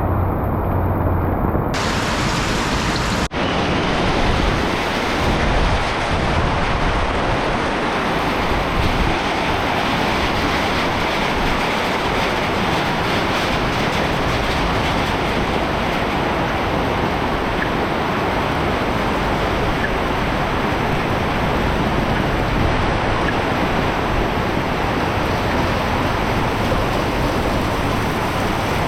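Heavy tropical rain pouring steadily, a dense even hiss. It cuts out for an instant about three seconds in.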